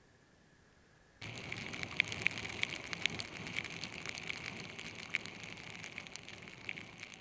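Heavy rain hitting a motorcycle-mounted camera and its housing: many sharp drop strikes over a steady hiss of rain and road spray. It starts suddenly about a second in and fades near the end.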